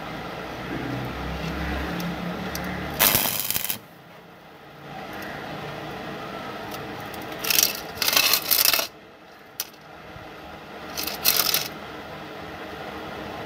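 Steel roller chain clinking and rattling in three short bouts as it is shifted by hand against a steel plate, over a low hum in the first few seconds.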